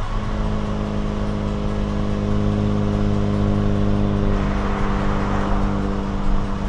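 Kia Stinger GT2's twin-turbo V6 heard through its MBRP cat-back exhaust from outside the car, droning at a steady engine speed while cruising.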